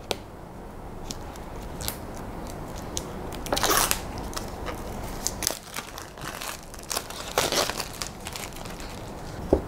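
Clear plastic packaging being peeled and crinkled off a small cardboard watch box, with light clicks and taps as the box is handled. The crinkling is loudest in two short stretches, about a third of the way in and again about three quarters through, with a sharp click near the end.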